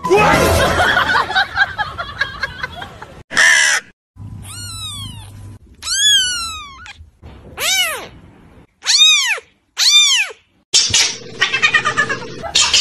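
A two-week-old kitten meowing: about five high, thin cries a second or so apart, each rising and then falling in pitch. Louder, busier mixed sound fills the first three seconds and the last two.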